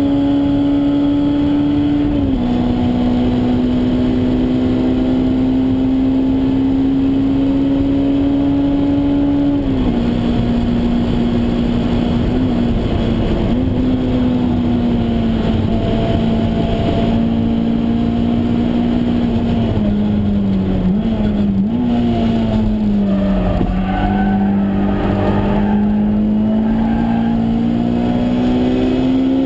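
Honda S2000's four-cylinder engine running hard at high revs, heard from inside the cabin over road and wind noise. Its pitch steps down about two seconds in and again about ten seconds in, sags with a few brief wobbles around twenty seconds in, then climbs again near the end.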